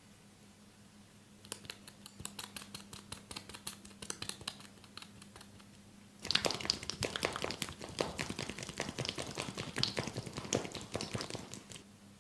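Hands rubbing and scratching through hair and over the ears close to the microphone, making a rapid crackle of tiny clicks. It starts softly about a second and a half in, grows louder and denser about six seconds in, and stops just before the end.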